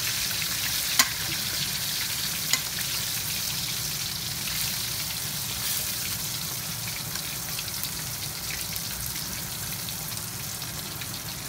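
Flour-coated, shell-on lobster pieces sizzling as they deep fry in hot oil in a stainless steel wok, the sizzle slowly getting quieter. Two sharp clicks of metal tongs against the wok come about a second and two and a half seconds in.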